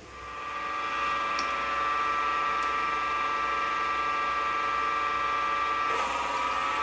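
Vevor MX-S716G variable-speed mini lathe spinning up over the first second, then running at about 1300 rpm with a steady whine. About six seconds in the tone shifts slightly as the spindle slows a little, the tool starting a cut in 2024 aluminum.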